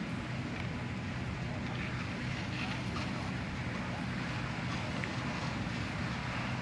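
Fire apparatus engines running steadily: a low, even diesel hum under a wash of noise.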